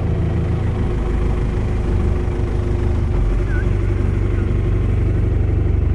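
Longtail boat's engine running steadily at cruising speed.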